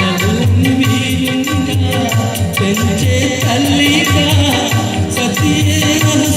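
Music with a steady percussion beat and a gliding melody line, in a folk style.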